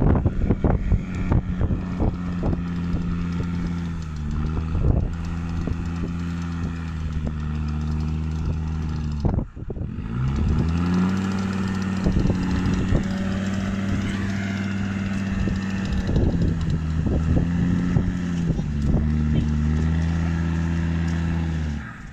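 Electric winch hauling a Land Rover Discovery Td5 out of deep mud on its line: a steady motor drone under load that shifts pitch slightly, cuts out briefly about nine seconds in, then spins back up. A few knocks come near the start and end.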